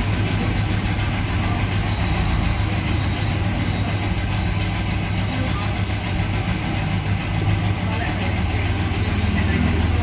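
Steady, unbroken low machine hum of workshop machinery running, with no change in pitch or level.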